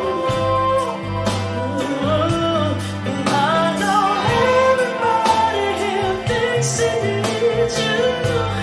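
Music: a rock/folk song with singing over a steady beat and bass line.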